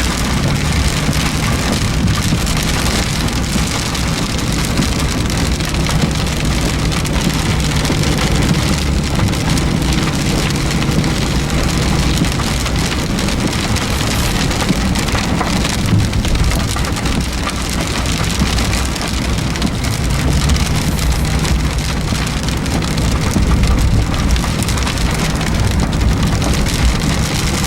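Heavy rain falling steadily on a car, with a low steady hum from the vehicle underneath in stretches.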